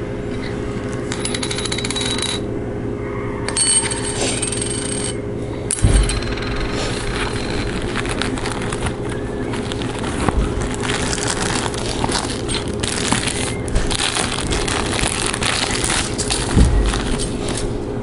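Close handling noise: hands rubbing, tapping and clicking a fisheye lens adapter, its cloth pouch and cardboard box, with a few sharper knocks, over a steady low hum.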